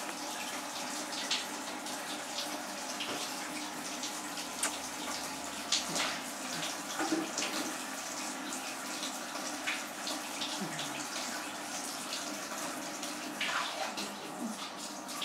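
Water running steadily, with many small splashes and clicks through it.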